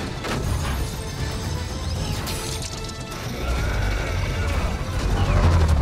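Action film soundtrack: a dramatic score over crashing sound effects of a truck tumbling through snow, with a deep rumble that swells loudest near the end.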